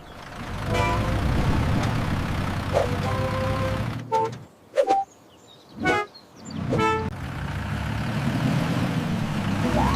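Bus sound effects: an engine running with a low rumble, broken by several short horn honks. The engine drops out for about two seconds in the middle.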